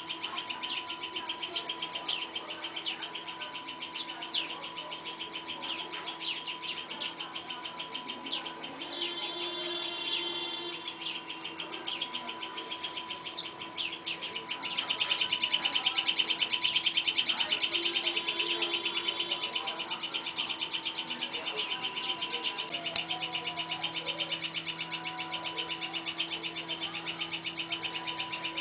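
Small birds chirping rapidly and without pause, with a sharp higher call about every two seconds in the first half. The chirping grows louder about halfway through.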